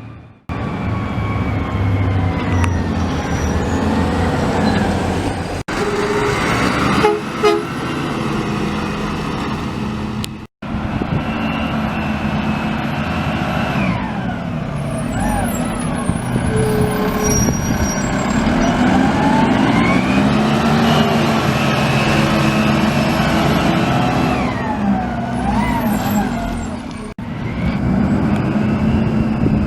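Garbage truck running, with a long high squeal that repeatedly glides up and down in pitch over the low sound of its engine. The sound cuts off abruptly several times, between clips.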